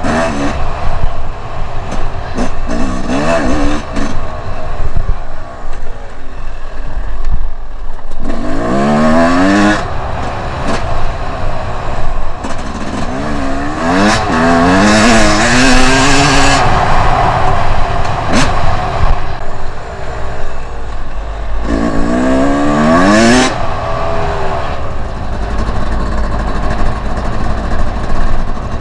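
Two-stroke enduro motorcycle engine accelerating hard in three main bursts about eight, thirteen and twenty-two seconds in, its pitch climbing and stepping up through the gears, with lower running between the bursts.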